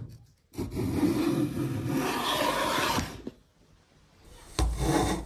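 A small metal plough plane cutting a groove along the edge of a hardwood board: one long rasping planing stroke, a pause, then a second stroke starting near the end with a low thump. A sharp click comes right at the start.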